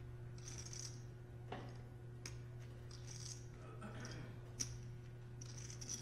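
Poker chips clicking and clattering together as they are handled at the table, in a scatter of short, sharp clicks, the sharpest about three-quarters of the way in. A steady low hum sits underneath.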